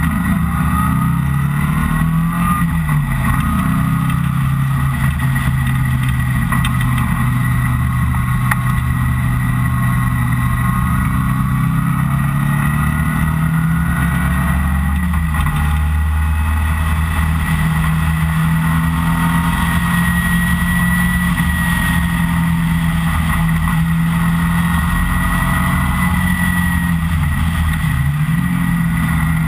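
Engine of an open-top, Seven-style lightweight sports car driven hard on a race track, heard from the open cockpit: a steady high-revving note that drops and climbs again a few times as the driver lifts off and shifts for corners, over constant wind and road noise.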